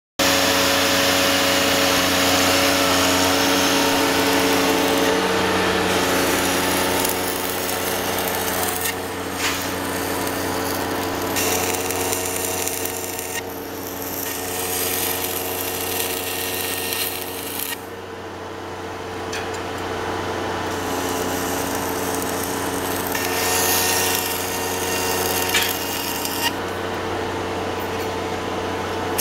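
Electric arc welding: the arc crackles and hisses in runs of a few seconds, with short breaks between runs and a longer pause about two-thirds of the way through, over a steady hum.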